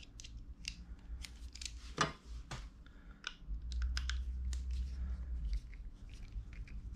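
Irregular light clicks and ticks of a precision screwdriver and small plastic phone-mount parts being handled while a hex screw is turned in, with one sharper click about two seconds in.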